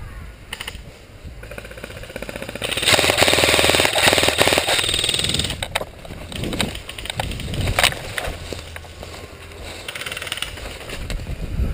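Airsoft gun firing fully automatic: a long run of rapid, even cracks about three seconds in, lasting a couple of seconds, with a lighter stretch of rapid fire near the end.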